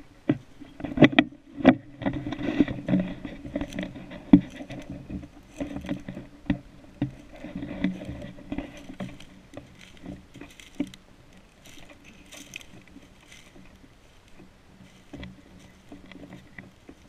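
Footsteps crunching and rustling through dry fallen leaves and twigs on a forest floor, with irregular sharp crackles. The steps are loudest and busiest in the first half and grow sparser and quieter later on.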